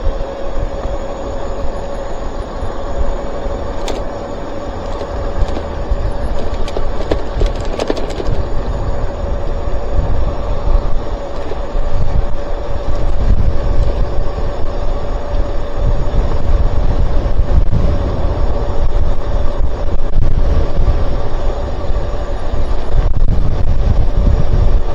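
Strong gusting wind buffeting the microphone with a heavy rumble that grows louder through the second half, over a faint steady whine from the e-bike's electric motor.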